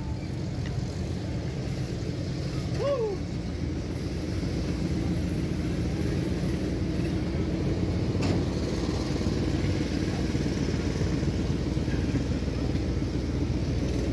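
A motor vehicle engine running steadily close by, getting a little louder about four seconds in.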